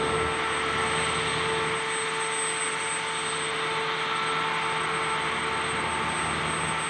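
High-reach demolition excavator running steadily: a continuous engine drone with a few high, steady whining tones over it.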